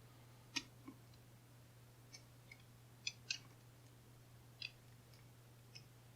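Faint, irregular metallic clicks from a disc detainer pick turning the discs inside a stainless steel disc detainer padlock, about eight over six seconds, some in quick pairs. The lock's core is gritty inside.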